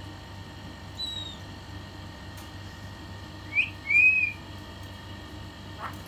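Pet myna whistling: a short falling whistle about a second in, then a quick rising note and a louder arched whistle a little past the middle.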